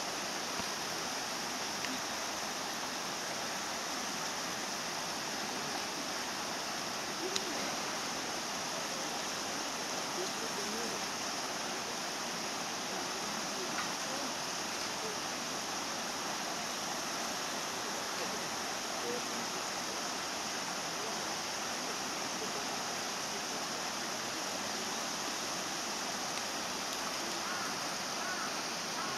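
Steady, even hiss of outdoor background noise with no single clear event, and faint distant voices.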